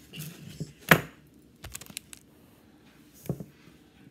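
Fingers tapping and knocking on a paper bowl of frozen ice: a sharp knock about a second in, a few light clicks, then another knock near the end.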